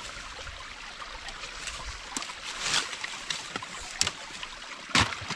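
Sticks and brush of a beaver dam rustling and clicking as a plastic bottle is shoved in among them, with water trickling through the dam. A few sharp knocks, the loudest near the end.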